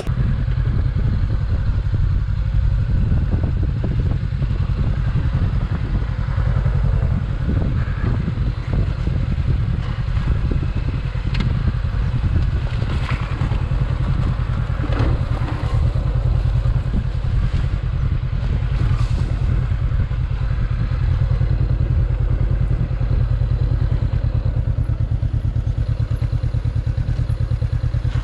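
Honda CB500X's 471 cc parallel-twin engine running steadily as the bike rides a rough dirt trail, with several sharp clattering knocks from the bike over rocks in the middle stretch.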